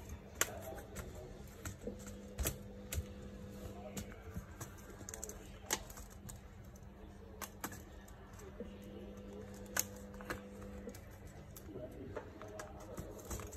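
Scattered light clicks and taps as the metal keyboard backplate of an HP 15 laptop is pressed down and its clips are snapped into the plastic top case. A faint steady hum runs through the middle.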